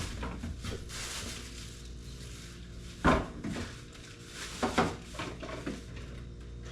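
Hand tools in their packaging being handled and set into a tool bag: a few light knocks and clatters, the sharpest about three seconds in and two more just under five seconds in, over a steady low hum.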